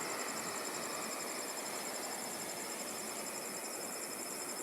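Steady hiss with a faint, high-pitched rapid beeping that pulses evenly throughout.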